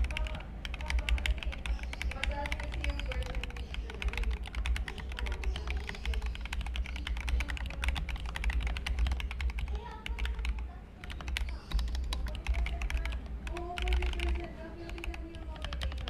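Fast, continuous typing on an Akko ACR-series mechanical keyboard fitted with Akko Jelly Black linear switches and ASA-profile keycaps: a rapid, uneven stream of key clacks.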